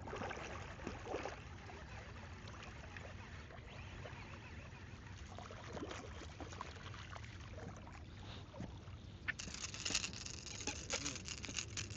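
Water lapping and splashing around a small boat, with a faint steady low hum underneath; about nine and a half seconds in, a louder hissing splash with small clicks and knocks takes over.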